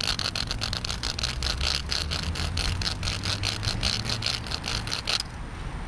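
A wooden stick scraped rapidly back and forth over the notches of a gee-haw whammy diddle (propeller stick), a dry rhythmic rasping at about five strokes a second that stops about five seconds in. This is the rubbing friction that sets the propeller at the tip spinning.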